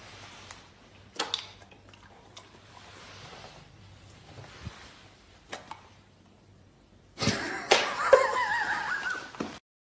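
A few light, sharp clicks and taps, then a louder wavering cry with a rising-and-falling pitch for about two seconds near the end.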